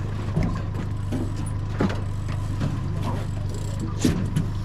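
Yamaha 75 outboard motor running steadily at low speed, a continuous low hum. A couple of sharp knocks stand out, about two seconds in and near the end.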